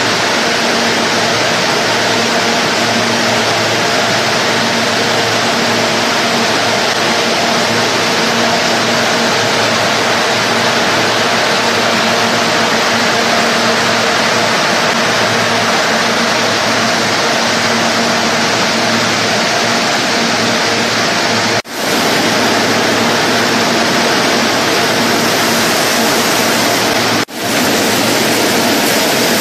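Food-processing line machinery on a factory floor: a steady rushing noise with a low motor hum. It breaks off briefly twice in the last third.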